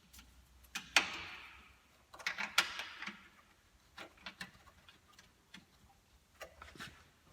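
Scattered clicks and clinks of small radiator mounting hardware and hand tools being handled: a sharp click with a short rattle about a second in, a cluster of clicks around two and a half seconds in, then lighter, sparser clicks.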